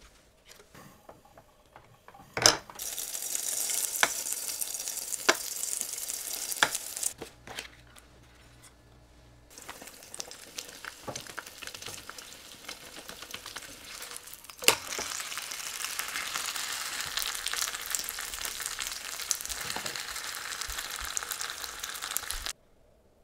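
Oil sizzling in a nonstick frying pan as a pork-filled rice paper wrap fries and is pressed flat with a spatula. A few sharp clicks are heard. The sizzle drops away briefly about a third of the way through, comes back louder past the middle, and cuts off suddenly near the end.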